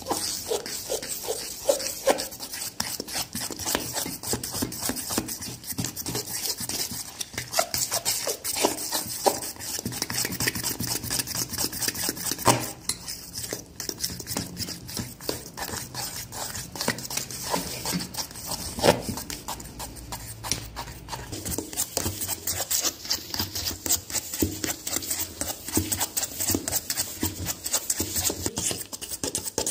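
Cake batter being beaten by hand in a steel bowl: a utensil knocks and scrapes against the metal in fast, unbroken strokes, with a couple of louder knocks about 12 and 19 seconds in, as the flour and oil are worked into a smooth batter.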